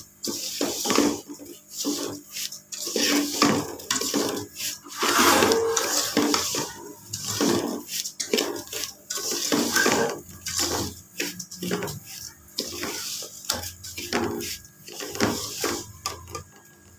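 Metal spoon scraping and stirring dry broken wheat around a metal pot, in repeated irregular strokes with the grains rustling against the pot wall. The daliya is being roasted in a little oil until it browns.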